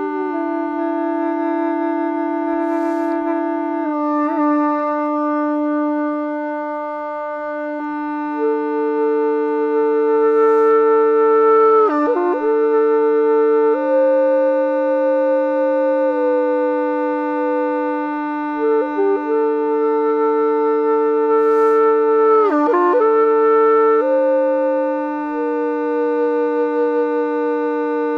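Calabash flute (hulusi) played solo: a slow melody in long held notes over a steady, unbroken drone, with quick dipping ornaments between some notes. Short breaths are audible between phrases.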